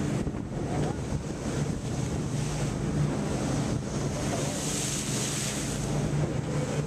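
Fishing boat under way: the engine hums steadily while wind buffets the microphone and water rushes past the hull.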